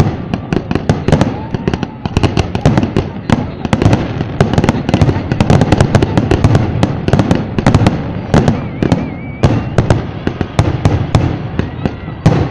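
A dense barrage of aerial firework shells bursting, several sharp bangs a second, overlapping one another.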